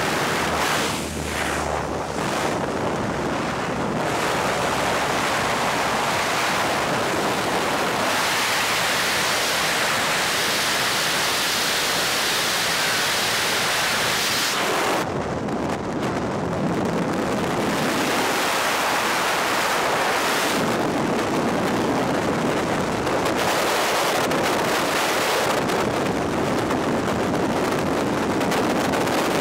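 Loud, steady rush of wind on the camera microphone: the slipstream at the open door of a small plane, and then the air of freefall on a tandem skydive.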